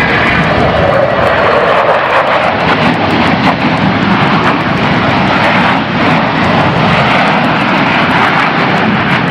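Jet engines of a formation of F-16 fighter jets flying past overhead: a loud, steady jet noise.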